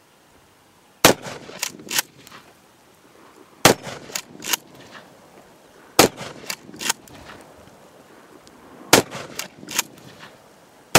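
Four blasts from a 12-gauge pump-action shotgun, about three seconds apart, with a fifth right at the end. Each shot is followed by two quicker, quieter clacks, the slide being racked back and forward to chamber the next shell.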